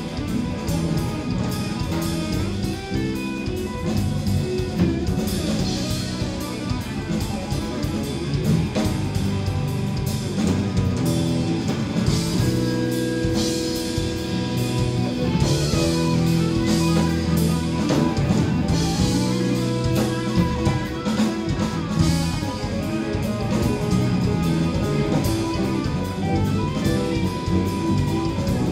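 Live jazz-rock fusion band playing: electric guitar, electric bass and drum kit, with steady cymbal strokes.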